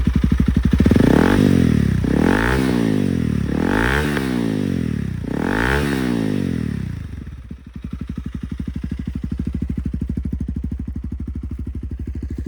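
Honda CRF300L single-cylinder engine blipped four times in quick succession from idle toward 8,000 rpm, then settling back to a steady idle. It exhausts through a budget eBay aftermarket muffler, broken in after a fiberglass repack, and it sounds loud.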